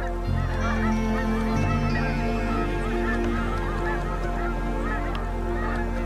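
A flock of geese honking in flight, many short calls overlapping without a break, over held music chords that come in just after the start.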